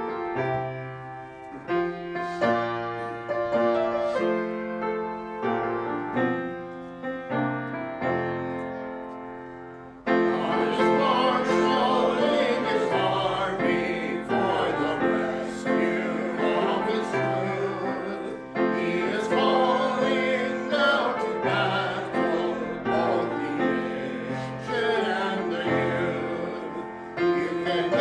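Piano playing a slow introduction. About ten seconds in, a solo voice comes in, singing in a classical style with vibrato over the piano accompaniment.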